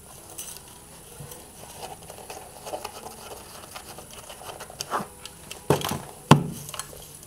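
Handling noise from a Porst Uniflex SLR camera being turned over in the hands: light rustling and small clicks of metal and leatherette body against fingers. Two sharp knocks near the end, the second the loudest, with a short low ring after it.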